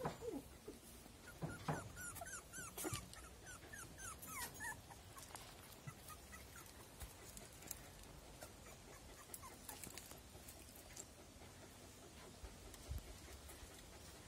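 Young Spitz puppies whimpering: a run of short, high squeaks through the first five seconds or so, then only a few scattered ones.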